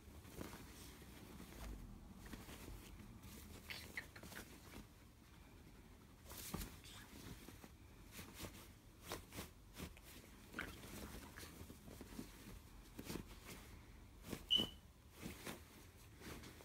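Faint rustling and scratching on a duvet as an African grey parrot plays with a hand, with scattered soft taps and scuffs from its feet and beak on the fabric. Near the end the parrot gives one short high squeak.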